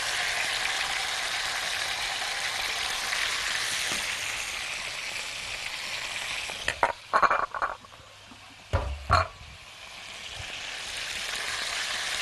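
Chicken breast strips sizzling in hot oil in a non-stick pan as more are added and pushed around with a spatula; the sizzle is the sign the oil is hot enough for the chicken to sear rather than release its water. The sizzle dies down about halfway through, a few sharp knocks come around seven and nine seconds in, then the sizzle builds again.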